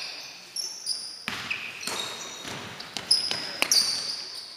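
Basketball bouncing several times on a hardwood gym floor, with many short high-pitched squeaks of basketball shoes on the court.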